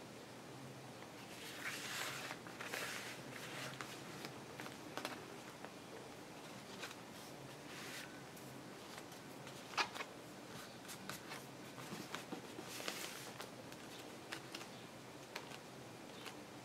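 Paper being handled and glued on a craft table: soft rustling and scraping in bursts, with scattered light taps and one sharp click about ten seconds in.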